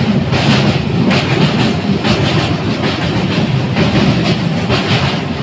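Train crossing a steel truss bridge, heard from aboard: a steady, loud rumble of wheels on the rails with a rattling clatter that repeats every half second or so.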